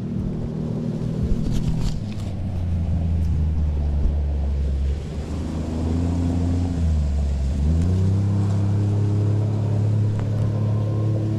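Engine of an off-road utility vehicle passing within about ten feet, running steadily. About two-thirds of the way through, its note drops, then rises again and holds.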